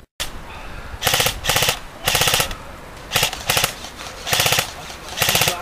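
Airsoft rifles firing about seven short full-auto bursts in quick succession, each a rapid rattle of shots lasting well under half a second.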